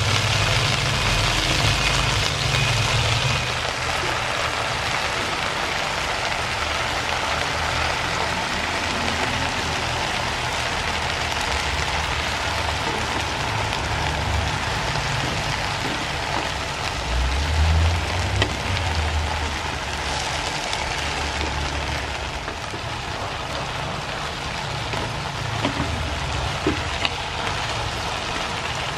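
Morning glory stir-frying in a hot wok: a steady sizzle, with a few short knocks of the wooden spatula against the pan.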